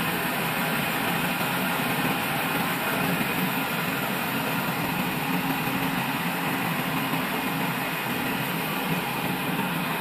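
Old log band sawmill running steadily, an even, unchanging mechanical noise of its motor and band blade.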